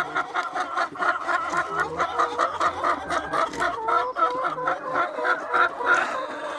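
A flock of laying hens clucking continuously, many birds calling over one another in a dense, steady chatter.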